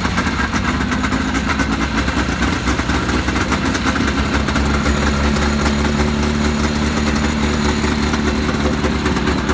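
1979 Yamaha Enticer 340 snowmobile's two-stroke twin engine idling steadily, freshly started.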